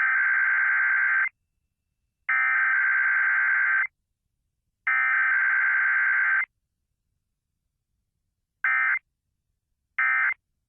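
Emergency Alert System SAME data tones: three long, harsh buzzing bursts of digital header code, each about a second and a half, a second apart. Then two short bursts of the same buzz, the end-of-message code.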